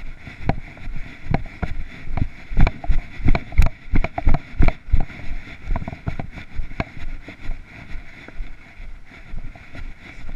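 Walking footsteps on grass and fallen leaves, heard close through a body-worn camera, about two to three steps a second and heaviest in the middle, over a steady hiss.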